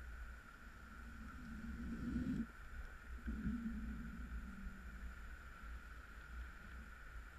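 Wind buffeting the camera's microphone: a steady low rumble, with a droning hum that swells and fades a few times.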